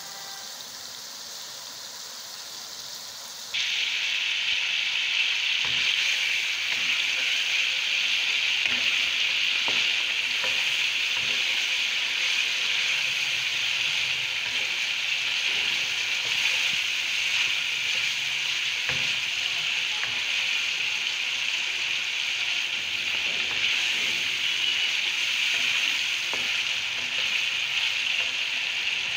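Chicken and spice masala sizzling as it fries in a non-stick wok-style pan, stirred and scraped now and then with a wooden spatula. The sizzle jumps suddenly louder about three and a half seconds in and then holds steady.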